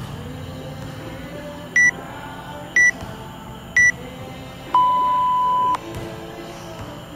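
WODProof interval timer's countdown: three short high beeps a second apart, then one longer, lower beep lasting about a second that marks the end of rest and the start of the next work round.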